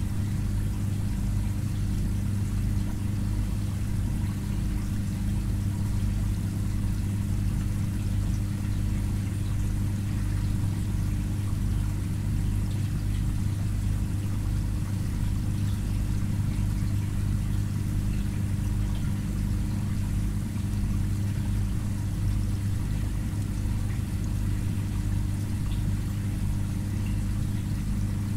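Aquarium pump humming steadily, with water trickling and pouring faintly over it.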